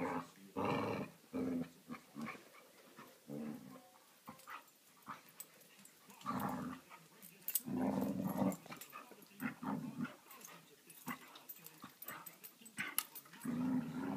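Border collie and her eight-week-old pup play-growling while they wrestle, in short bouts of about half a second to a second, with light clicks and scuffles between the growls.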